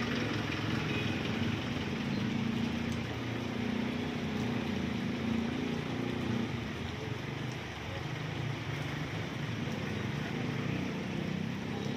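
Traffic on a rain-wet street: a vehicle engine hums close by for the first half, then fades, over a steady hiss of the wet road.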